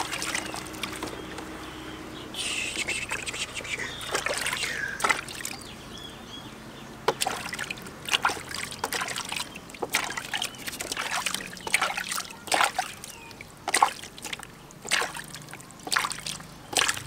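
Water splashing in a plastic basin as a hand scoops and pours it over a baby monkey, with trickling early on and a run of short splashes about once a second in the second half.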